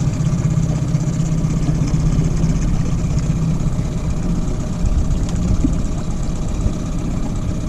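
Boat motor running steadily at slow trolling speed, a low, even engine drone.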